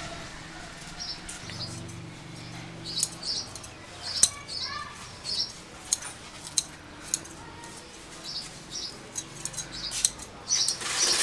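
Hand scissors snipping grass close to the ground, irregular sharp clicks, with small birds chirping over and over.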